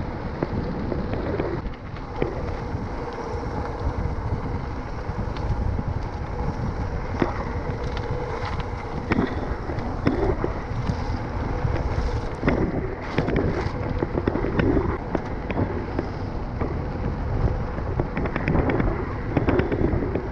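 Mountain bike riding downhill over a perforated concrete-slab track: wind buffeting the action camera's microphone, with tyre rumble and frequent rattling knocks from the bike bouncing over the slabs.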